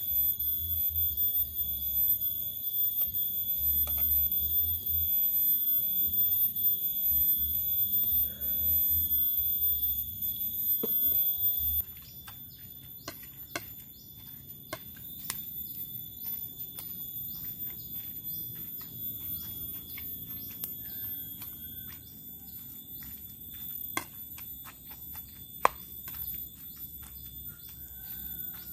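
Insects keep up a steady high-pitched drone in the outdoor setting; it is loud at first and drops off suddenly about twelve seconds in. After that come light clicks and taps of ingredients being mixed and ground by hand, with one sharper knock near the end.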